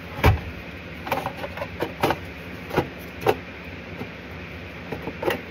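Black plastic housing of a diesel air heater being handled and fitted together: a series of sharp plastic clicks and knocks, the loudest just after the start, the others spread about a second apart.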